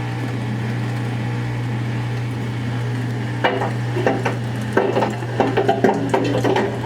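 Irregular knocks and clatter of a tool working on a dryer's sheet-metal back panel, starting about halfway in, over a steady low hum.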